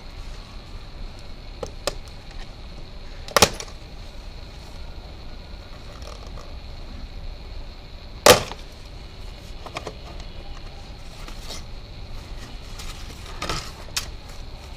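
Scattered clicks and knocks from work on a scooter's front end, with two sharp metallic clanks about three and eight seconds in and a lighter one near the end.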